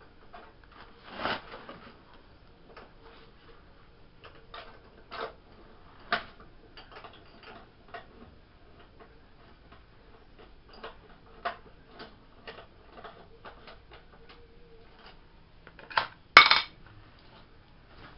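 Screws being driven back into a Briggs & Stratton mower engine's pull-start housing with a hand screwdriver: many small metallic clicks and clinks, with a few sharper knocks, the loudest two close together near the end.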